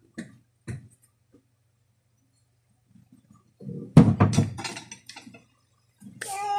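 Parts of a disassembled Daisy Powerline 1200 air pistol handled with a few light clicks, then a long slide piece set down onto cardboard with a sharp knock and a short clatter about four seconds in. Near the end a long high cry starts.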